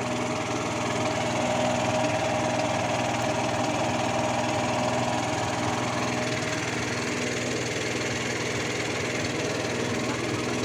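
Small generator engine on a lift-net fishing platform running at a steady, even pace, powering the lamps over the water.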